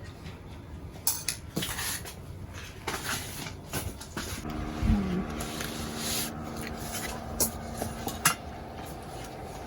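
Dishes and cutlery clattering and clinking as food is served onto plates, with a louder knock about halfway. A steady low hum comes in at about the same point.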